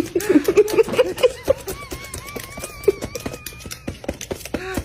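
Chickens pecking at food: rapid irregular taps of beaks on the feed and ground, mixed with soft low clucks and a thin wavering peep about halfway through.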